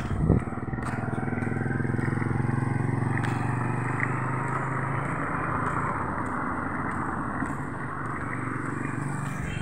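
A motorcycle passing close by on the road, its steady engine note swelling over the first few seconds and then slowly easing off. A brief knock sounds right at the start.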